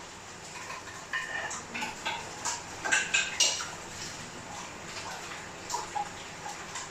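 Dishes and cutlery clinking and knocking together as they are washed by hand in a kitchen sink. The clinks come in a scatter, loudest about three seconds in, then thin out to a few lighter knocks.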